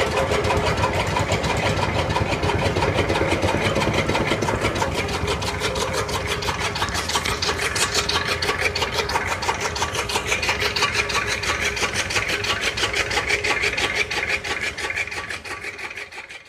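Electric chaff cutter running, its flywheel blades chopping hand-fed green grass and stalks. A rapid, steady chopping rhythm sits over the hum of the belt-driven electric motor, fading out near the end.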